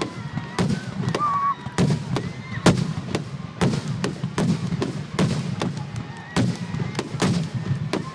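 Aerial firework shells bursting in a finale barrage, sharp bangs coming several a second over a continuous low rumble, with a few short whistles in between.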